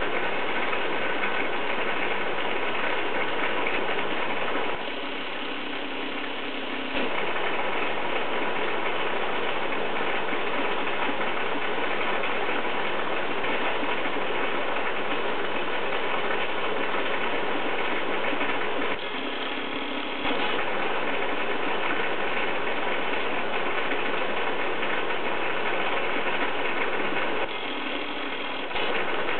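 Aquarium aeration running: a steady rattling, bubbling noise from the air pump and the bubbles rising in the tank, over a faint low hum. It dips slightly three times, for a second or two each.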